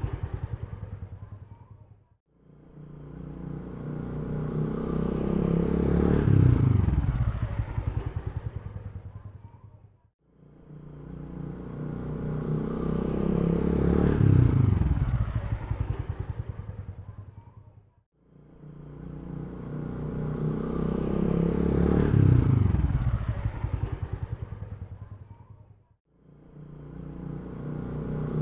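A motor vehicle engine passing by, again and again: each pass swells up, peaks and then drops in pitch as it fades out, repeating evenly about every eight seconds like a looped track.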